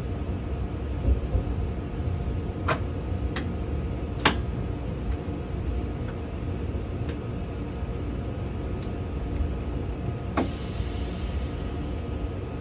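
Driver's cab of an ICE 4 train rolling slowly through the station: a steady low rumble with a few sharp clicks. Near the end a high hiss comes in and fades away.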